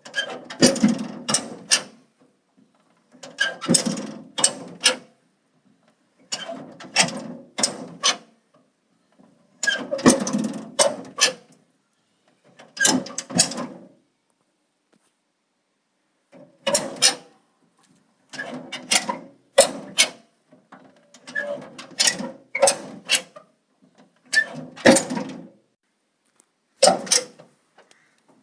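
A metal door being worked again and again: about nine bursts of latch and handle clicks with metal rattling, each lasting a second or two, roughly every three seconds, with a longer pause about halfway.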